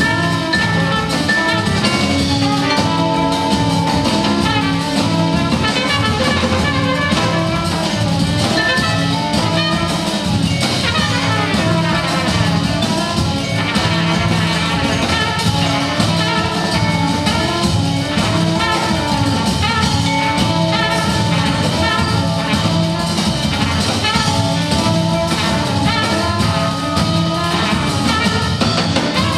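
A large jazz ensemble playing live: dense, continuous music with many instruments sounding at once over a steady low pulse.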